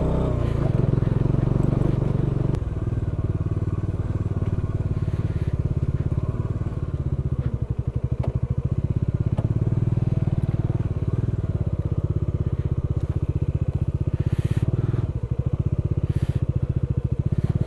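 Motorcycle engine pulling at low revs up a steep rough gravel track, its firing pulses steady, with the note changing about two and a half seconds in. Tyres crunch over loose stones.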